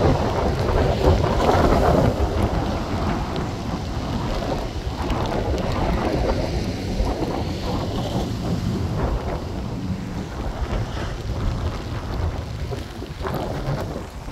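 Gusty hurricane wind buffeting the microphone, with a loud, uneven low rumble and rain falling.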